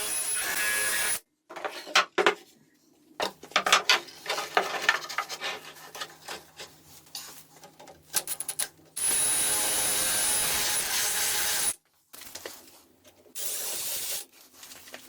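Wood being worked by hand and machine in short, abruptly cut clips. Stretches of steady power-tool noise alternate with irregular scraping, rubbing and knocking on wood.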